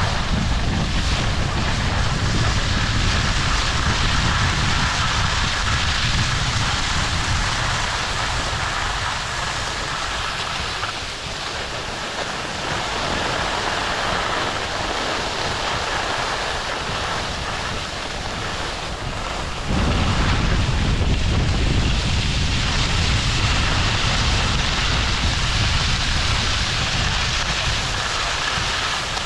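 Wind buffeting the microphone while skiing downhill, over a steady hiss of skis sliding on snow. The low rumble eases off in the middle and comes back suddenly about twenty seconds in.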